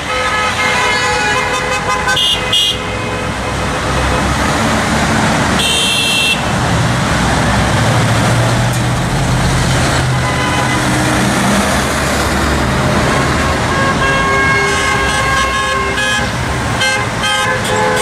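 Heavy highway traffic passing below, a steady wash of tyre and engine noise, with vehicle horns honking: tones in the first few seconds, a short toot about six seconds in, and several more honks over the last few seconds. A heavy truck's low engine sound swells through the middle.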